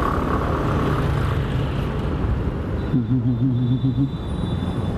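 Steady road noise of a scooter ride through traffic: a low rumble of engine, tyres and rushing air heard from a microphone inside a closed helmet.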